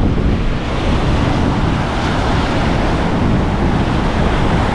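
Ocean surf breaking and washing up the beach, with wind buffeting the microphone in a steady low rumble.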